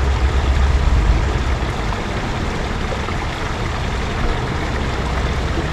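Low rumble and hiss of road traffic, heaviest in the first couple of seconds and then easing to a steady level.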